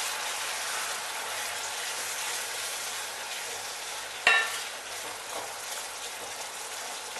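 Onion, ginger-garlic and ground-spice masala sizzling in mustard oil in a stainless steel pan while being stirred and scraped with a wooden spatula: the masala is being fried down until the oil separates. One sharp knock on the pan about four seconds in, with a brief ring.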